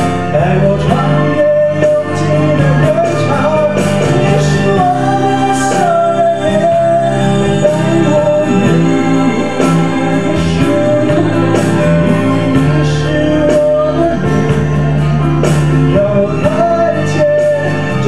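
A man singing a wavering melody through a handheld stage microphone over sustained backing chords, with light percussion ticking along.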